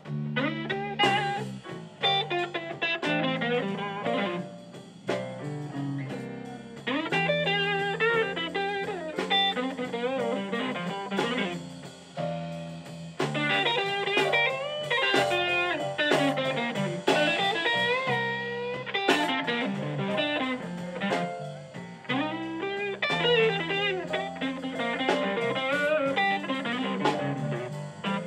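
Live electric blues: an electric guitar plays lead lines full of bent, wavering notes over a steady low backing.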